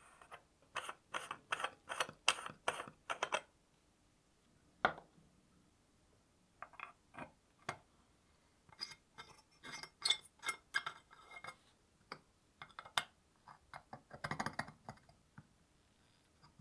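Sharp metal clicks and clinks of a small flat steel spanner working against the brass and steel parts of a 1950s Juwel 34 camping stove being taken apart. The sound opens with a quick run of clicks as the spanner turns the brass filler cap, then scattered taps with a dense cluster of clinks near the end.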